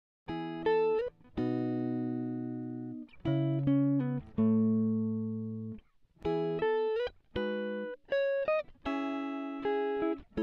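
Background music: a plucked guitar playing a series of chords and short note runs, each ringing out and fading before the next.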